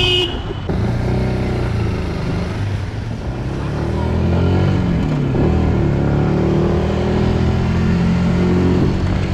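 Yamaha MT motorcycle engine running on the move, its pitch dipping about halfway through and then climbing again.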